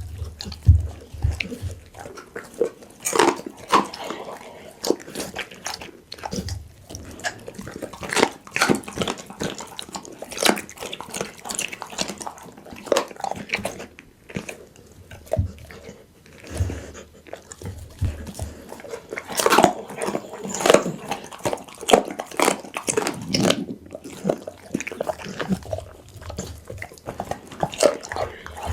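Pit bull chewing and biting into raw food, with irregular, closely spaced crunching and smacking bites.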